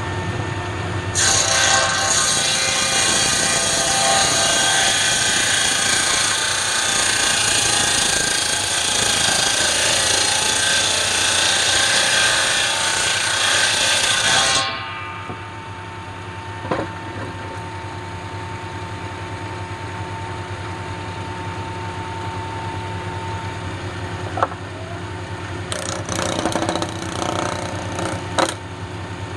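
Bench-mounted circular saw cutting through a log, a loud steady cutting noise lasting about thirteen seconds, then the blade spinning free with the motor humming. A couple of knocks and a few short bursts of cutting come near the end.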